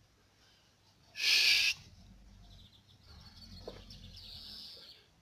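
A brief loud rustling burst about a second in, then faint bird calls, low and cooing-like, that fit a wood pigeon.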